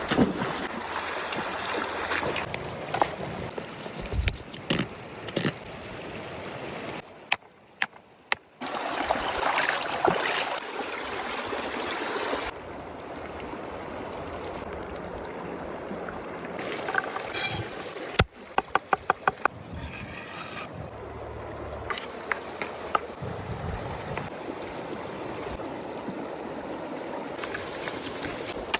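Kitchen cooking noise: a steady watery hiss broken by scattered clicks and knocks, with a quick run of about eight taps a little past the middle.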